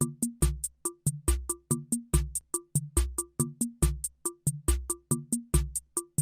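Electronic background music: a steady drum-machine beat of quick hi-hat ticks, deep kick thuds and short synth blips.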